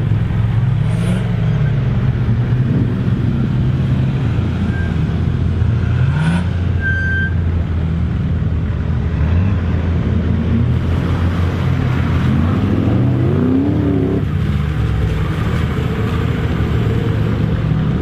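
Nissan Patrol's swapped-in LS6 V8 engine running under load and revving, its pitch falling and rising near the start and climbing in several quick revs in a row about two-thirds of the way through.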